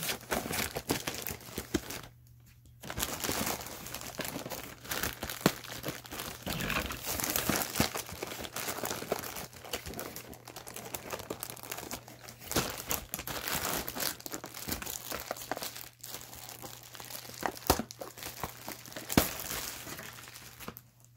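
Clear plastic wrapping on a toy box crinkling and tearing as it is cut open with scissors and pulled off, with a short pause about two seconds in.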